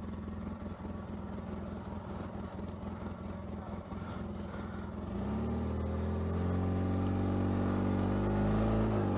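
Polaris RZR 800 side-by-side's twin-cylinder engine idling, then about five seconds in it is given throttle and its pitch rises to a higher, louder steady run, easing briefly near the end.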